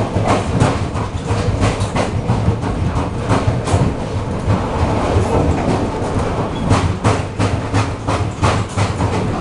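Bogie of an ER2R electric train carriage knocking in a steady rhythm, about three knocks a second, over the low hum of the running train, heard from inside the carriage. A strange knock whose cause is unknown.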